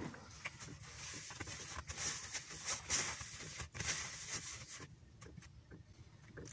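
Silicone spatula stirring a dry flour mix in a plastic mixing bowl: soft, uneven scraping and rustling with small taps against the bowl, dying down about five seconds in.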